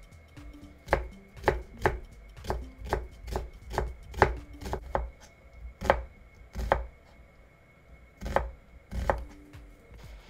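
Kitchen knife slicing an onion thinly on a plastic cutting board: a series of sharp knocks of the blade on the board, about two a second, then a pause and two more knocks near the end.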